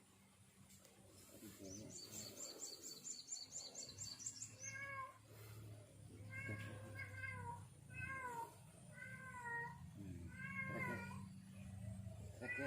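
A cat meowing again and again, a string of short rising-and-falling calls each under a second long, starting about five seconds in. Earlier there is a brief run of rapid high-pitched chirps.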